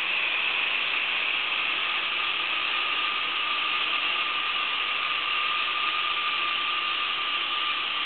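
Pump motor running steadily with a high whine, pulling a homemade vacuum chamber down to about 25 inches of mercury, the lowest it reaches.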